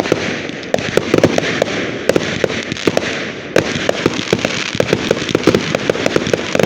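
Fireworks crackling: a dense, irregular run of rapid sharp cracks and pops over a steady hiss.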